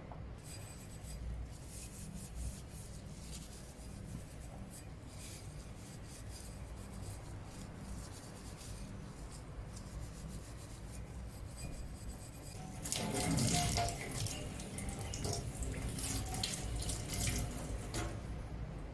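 Water running from a tap into a sink for about five seconds, starting about two-thirds of the way in and stopping near the end. Before it there are faint clicks of handling over a low steady hum.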